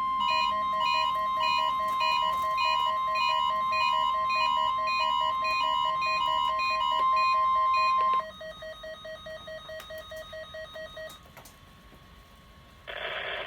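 NOAA Weather Radio warning alarm: a single steady 1050 Hz tone that cuts off about eight seconds in. Underneath it runs a rapid pulsing pattern of electronic beeps at several pitches, which carries on for about three seconds after the tone stops. A radio announcer's voice starts near the end.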